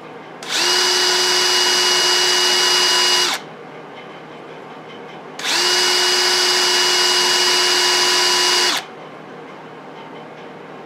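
Electric drill spinning a red Scotch-Brite abrasive pad against a metal gauge panel, run twice for about three seconds each. Each run winds up to a steady whine and cuts off abruptly, pressing one engine-turned swirl into the metal.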